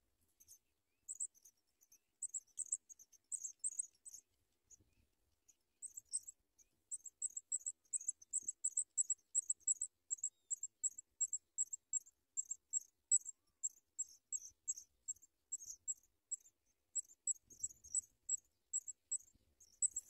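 Pipit nestlings begging: thin, high-pitched peeps repeated about three to four times a second, with a short pause about four seconds in.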